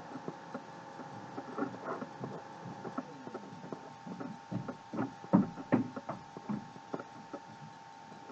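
Irregular light knocks and taps, more of them and louder about five seconds in, over a steady faint hum.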